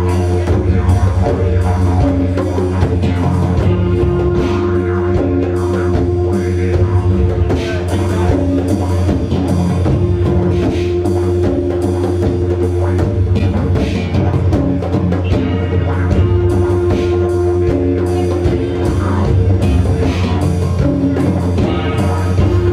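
Live band music: a didgeridoo droning low and steady over conga drums and hand percussion, with electric guitar.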